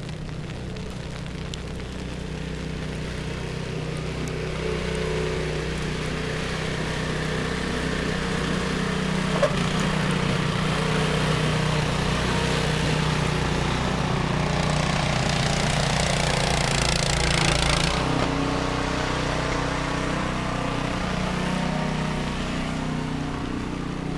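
A motor engine running steadily, with a hissing rush that builds over several seconds and cuts off abruptly about eighteen seconds in.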